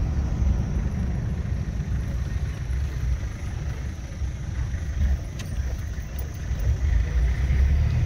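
Engine and road noise inside a small vehicle's cabin while driving: a steady low rumble, with one light click about five seconds in.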